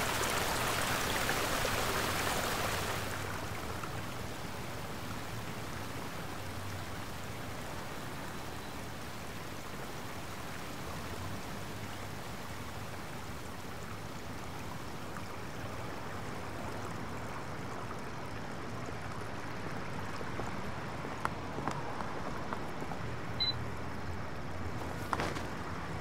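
Steady hiss and patter of rain falling on wet pavement, louder for about the first three seconds, where a fountain splashes.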